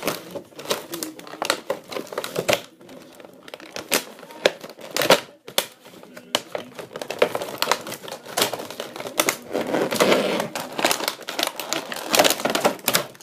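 Plastic toy packaging crinkling and rustling, with many quick clicks and snaps as a toy figure is worked free of its package.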